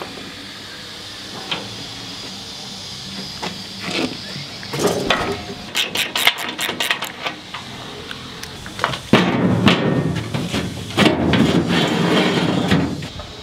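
Background music with a run of sharp metallic knocks and clinks from hand work on the boat's steel gate and hinge. The knocks come in a quick cluster about five seconds in, then denser and louder from about nine seconds in.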